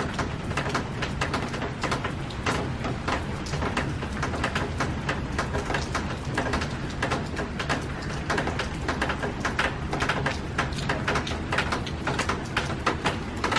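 Heavy rain falling steadily, with many sharp drop impacts close by.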